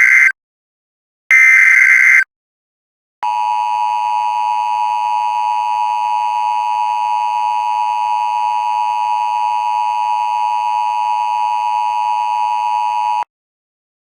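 Emergency Alert System header data bursts: the end of one short buzzing burst, then a second about a second later. After a pause comes the EAS attention signal, a steady two-tone sound held for about ten seconds that cuts off abruptly.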